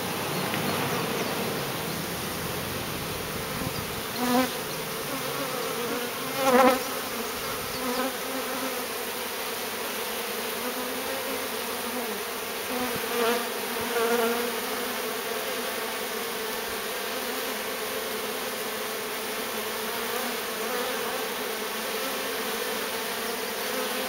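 A swarm of honey bees that has just moved into a nuc box, buzzing at the entrance: a steady hum, with several louder buzzes as single bees fly close past, the loudest about six and a half seconds in.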